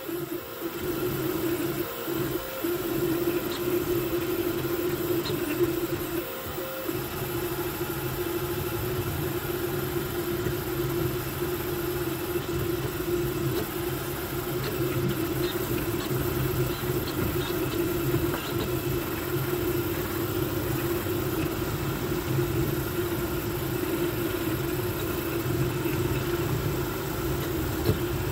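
Voron V2.4 3D printer running a high-speed print: a steady mechanical hum and whine from its stepper motors as the toolhead moves, with cooling fans whirring.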